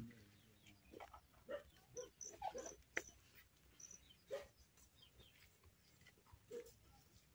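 Near silence, broken by a few faint, short animal calls now and then.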